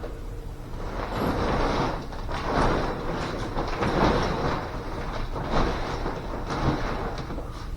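Fabric cover of a portable cloth steam sauna rustling as it is handled and fitted over its frame, with a few light knocks.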